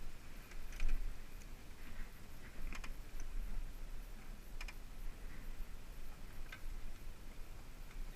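Light clicks and taps of hand tools against metal parts, with about four sharper clicks a couple of seconds apart, over a steady low hum.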